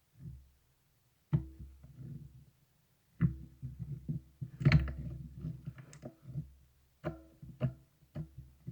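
Marbled slime being handled: irregular squelching sounds with a few sharp clicks, loudest about four to five seconds in, broken by short silent gaps.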